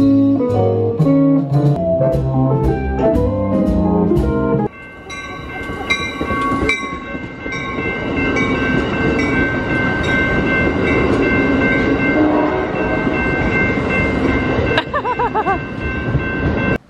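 Live guitar music with plucked notes for about four and a half seconds, then it cuts off abruptly. A steady noisy rumble with several held high tones takes over, and a short wavering glide sounds near the end.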